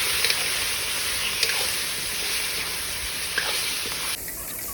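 Onions and spices frying in hot oil in a pan: a steady sizzle with a few sharp crackles, cutting off suddenly about four seconds in.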